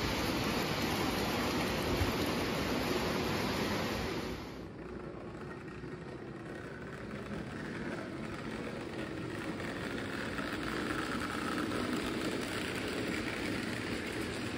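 O gauge model passenger train running on three-rail track, with a steady sound of wheels and cars rolling past. About four and a half seconds in it drops to a quieter run that grows louder as a steam locomotive and its cars come out of a tunnel and approach.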